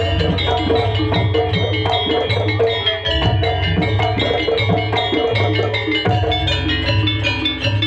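Javanese jaranan ensemble music: gamelan-style metallophones and drums playing a steady, repeating dance rhythm, with ringing pitched tones over a pulsing low beat.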